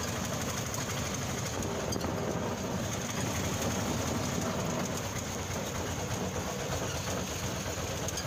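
Auto-rickshaw's small engine running steadily as it drives, with road noise, heard from inside the open cab.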